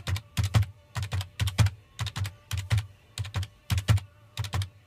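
Computer keyboard keys tapped in a steady rhythm as a beat: pairs of sharp keystrokes, each with a dull thump, about twice a second.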